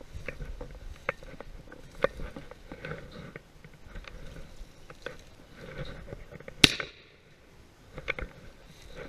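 A single shotgun shot about two-thirds of the way in: one sharp crack with a short fading tail. Before it, scattered soft knocks and rustling from moving through dry grass.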